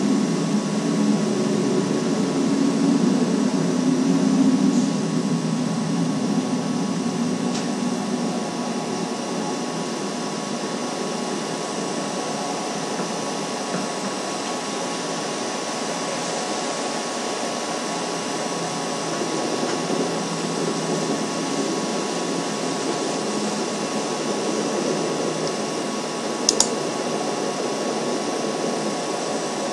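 Steady hiss with a constant electrical hum from the live nest-cam's outdoor microphone, with a louder low rumble for the first few seconds and one sharp click near the end.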